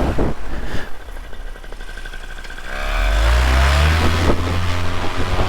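Paramotor engine running at low throttle, then throttled up about three seconds in, its pitch rising quickly before it holds a steady, louder run.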